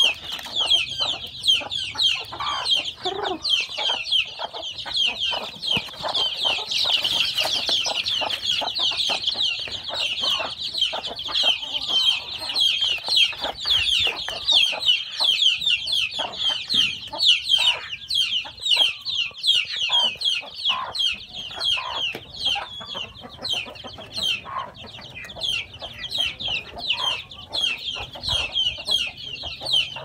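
A brood of young chicks peeping continuously, many short, high, falling peeps overlapping one another, with a hen clucking lower now and then underneath.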